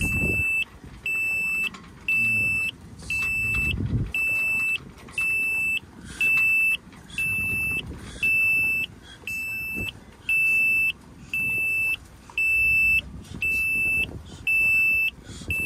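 High-pitched electronic warning buzzer beeping steadily about once a second, the diesel engine panel's alarm sounding with the key on while the glow plugs are preheated before a start.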